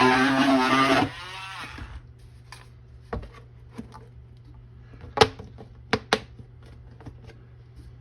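A power tool motor runs loudly for about a second and spins down, falling in pitch. Then a few sharp knocks and clacks of plastic being handled, with a steady low hum underneath.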